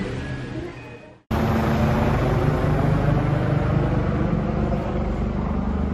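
Steady city traffic rumble, heaviest at the low end, starting abruptly after a moment of dead silence about a second in.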